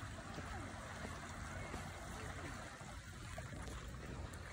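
Small waves lapping gently at a sandy shore, a steady wash of water with a low rumble of wind on the microphone.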